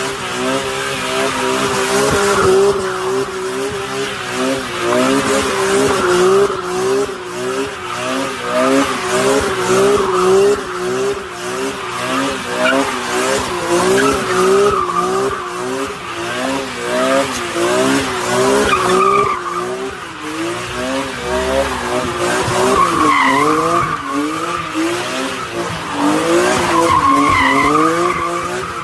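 BMW M car drifting: the engine's revs rise and fall over and over under the throttle while the tires squeal.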